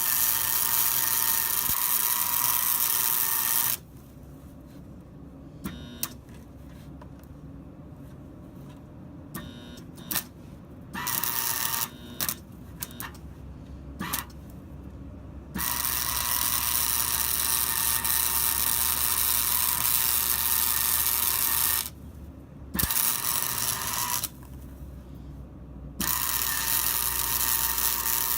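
Hobart arc welder welding steel chain hooks onto a skid steer bucket: the arc crackles and buzzes in runs of several seconds, stopping and restarting, with a few short blips of arc between the longer runs.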